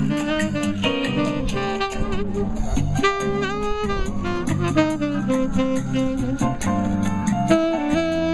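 Saxophone playing a jazz melody, with held notes that waver in vibrato, over accompaniment with a steady beat.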